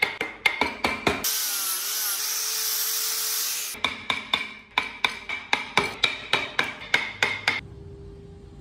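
Sharp, regular taps of wood-carving work, about four a second, broken in the middle by a random orbital sander running on the wood for about two and a half seconds. Near the end the tapping stops, leaving a faint steady hum.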